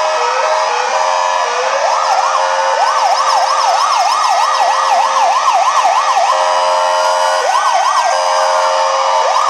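Several ambulance sirens sounding at once: steady two-tone hi-lo tones overlap a rising-and-falling yelp, which runs fast, about three sweeps a second, from about three seconds in to about six. Near the end it slows to single rising whoops.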